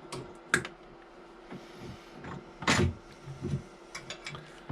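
Handling noise from work on wiring: a few sharp clicks, with one louder, brief scraping clatter in the middle.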